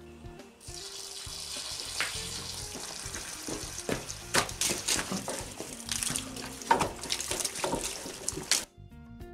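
Water running from a hose, hissing and splashing, with irregular sharp splashes and knocks; it starts about half a second in and stops abruptly near the end. Quiet background music plays underneath.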